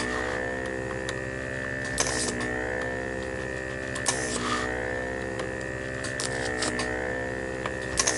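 Vacuum pump of a desoldering iron running steadily with a pitched hum and whine. Its tone dips briefly about every two seconds with a short hiss and clicks as solder is sucked from each switch pin.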